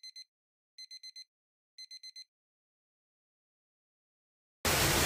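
Three quick groups of about four short electronic beeps, a second apart: a text-typing sound effect as on-screen text fills in. Near the end, a loud rushing of water cuts in suddenly.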